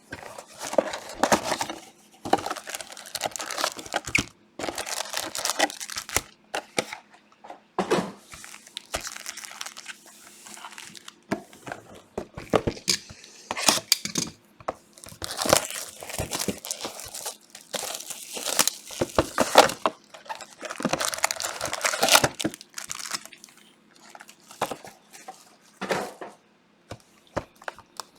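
Plastic wrapping on trading card boxes and packs being crinkled and torn by hand, in irregular bursts of rustling and ripping with short pauses.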